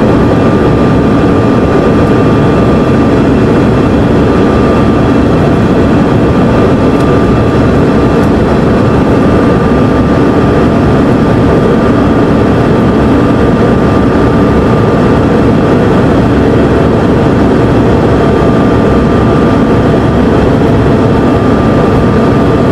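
Cabin noise inside a Bombardier CRJ-200 regional jet in flight: the steady roar of its rear-mounted General Electric CF34 turbofans and the rushing air, with a thin steady whine over it.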